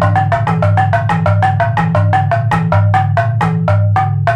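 Suspended wooden slats struck with a mallet in a fast, even run of pitched wooden notes, about seven strokes a second, over a steady low drone.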